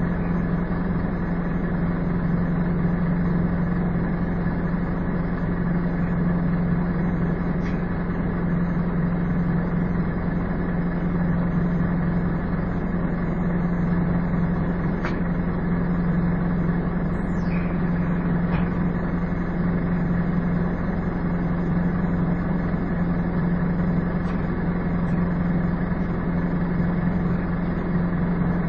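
A Scania N230UD double-decker bus's five-cylinder diesel running steadily, heard from on board, with the constant hum and whoosh that earns these buses the nickname "Hoover". There are a few faint ticks and rattles.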